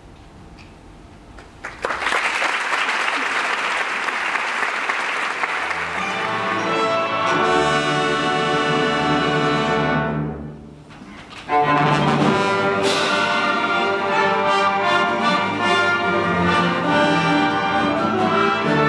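Symphony orchestra with strings and brass playing film music: quiet at first, then a sudden loud swell of noise without clear pitch about two seconds in, giving way to the full orchestra. The sound drops away briefly near ten seconds, then comes back as a loud brass-led passage.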